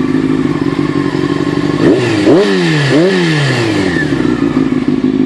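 Honda CBR600F Sport inline-four idling through an aftermarket Scorpion exhaust, blipped twice about two and three seconds in, the revs rising sharply and falling back to idle each time.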